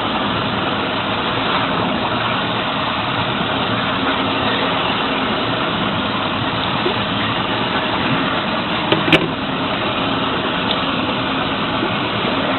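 Boat engine idling steadily, with a brief sharp knock about nine seconds in.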